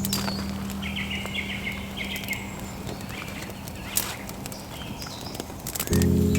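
Woodland birds singing, with a quick run of chirps about a second in, over soft background music; a few sharp clicks near the middle and end.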